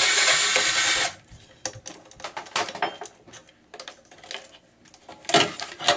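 A loud burst of noise about a second long, then scattered clicks and clatters of hard metal and plastic computer parts being handled during disassembly, with a louder cluster of knocks near the end.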